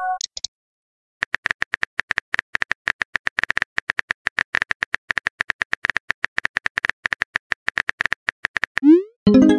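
Messaging-app keyboard typing sounds: a long, quick run of even clicks as a text message is typed in. Near the end, a short rising swoosh and a chime as the message is sent.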